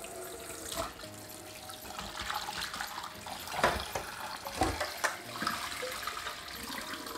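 Kitchen tap running into a stainless steel bowl of seafood in a sink, with a few sharp knocks and splashes midway as the seafood is handled and tipped into a mesh strainer.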